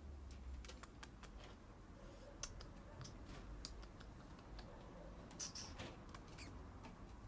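Faint, irregular light clicks and ticks over quiet room tone, with two sharper clicks about two and a half and five and a half seconds in.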